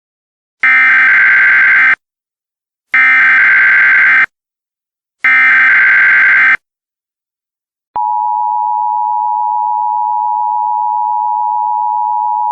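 Emergency Alert System signal: three short bursts of SAME header data tones, about a second apart, then the two-tone EAS attention signal coming in about eight seconds in as one steady held tone. This is the start of an emergency alert broadcast, here a law enforcement warning.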